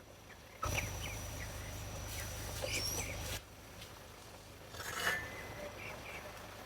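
Meat chickens making short peeps and calls, over a rushing noise with a low rumble that runs from under a second in until past three seconds, then stops.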